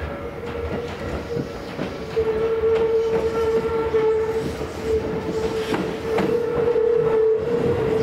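Electric commuter train running past on the line, with a steady whine and the clicks of wheels over rail joints. It gets louder about two seconds in as the train comes closer.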